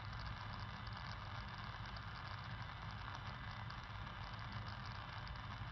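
Audio from a KiwiSDR software-defined radio receiver tuned near 31.28 MHz: a steady, unbroken horn-like wideband signal of unknown origin, heard under radio static.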